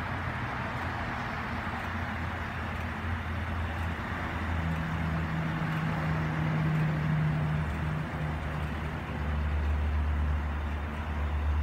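Chevrolet Silverado 1500 pickup's engine idling: a steady low hum over a rushing background, growing louder near the end.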